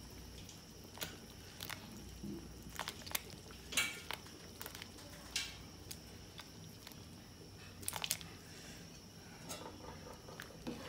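Cubes of congealed pig blood dropped by hand into a pot of boiling rice porridge: a string of irregular soft plops and splashes, with small clinks against the bowl, the loudest about four seconds in and again around eight seconds.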